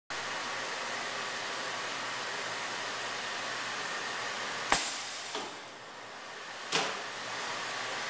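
Radio-frequency bar welder running with a steady rushing, fan-like noise. A sharp clunk comes a little under five seconds in as the press head closes, and a second clunk about two seconds later. The rushing noise drops briefly between the two clunks.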